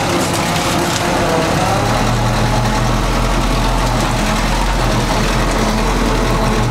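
A 1953 Willys M-38 jeep's four-cylinder flathead engine running steadily, with a steady low hum settling in about two seconds in.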